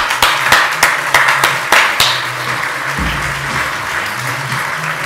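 Audience applause, with a few sharp, loud claps close to the microphone in the first two seconds before it settles into an even patter of clapping. Music plays underneath, its low notes changing about three seconds in.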